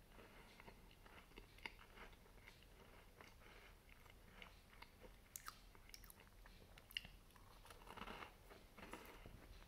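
A person chewing a chocolate chip cookie: faint, irregular crunches and sharp clicks, growing louder and denser for a moment about eight seconds in.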